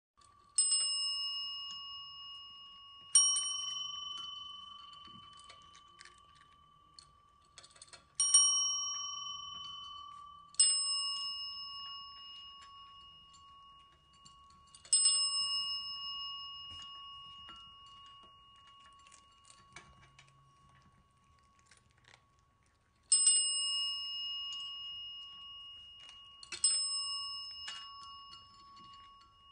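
A small bell struck seven times at uneven intervals, each single ding ringing out and fading over a few seconds, with a long pause in the middle. Cats ring it to ask for food.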